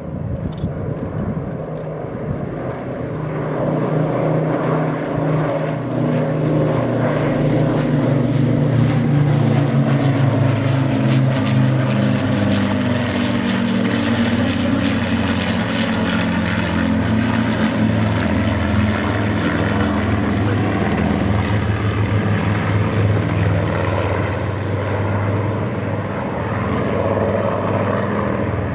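Propeller aircraft flying over with a steady engine drone that builds over the first few seconds, is loudest about ten seconds in, then eases off slightly.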